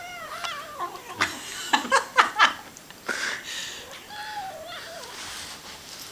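A tiny kitten growling in a wavering, warbling tone as it chews a broccoli floret, with a cluster of sharp clicks about a second in and a second growl near the middle.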